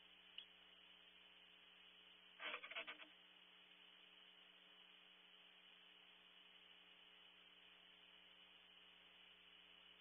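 Faint steady electrical hum and hiss from a barn owl nest-cavity camera's microphone, with a short cluster of scratchy clicks about two and a half seconds in, as the barn owl shifts in the cavity.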